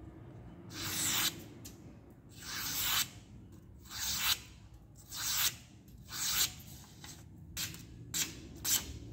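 A sharp handmade knife slicing through a thin paper slip: about eight separate strokes, each a short rasping hiss, showing how keen the edge is.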